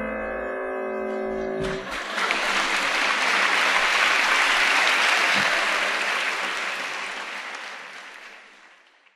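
The last piano chord of the song rings out, then audience applause breaks in about two seconds in, swells and fades away near the end.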